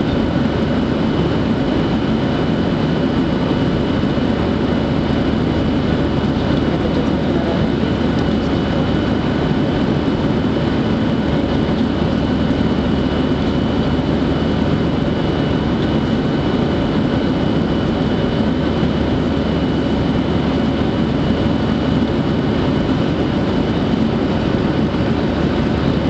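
Airliner cabin noise in flight: the steady roar of the engines and rushing air heard from inside the cabin, with a few faint steady tones over it.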